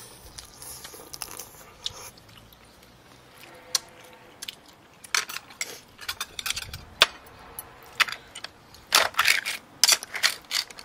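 People eating seafood hotpot: chewing and mouth sounds mixed with sharp clicks and crackles of chopsticks and shells. The clicks come sparsely at first and grow frequent in the second half.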